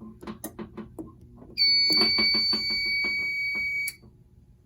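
Fire alarm control panel's piezo sounder giving one steady, high-pitched beep of about two seconds during a panel reset, over a run of rapid clicking.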